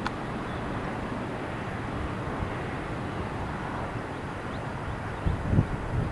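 Loaded rock hopper cars of a freight train rolling past with a steady rumble of wheels on rail. A few low thumps come near the end.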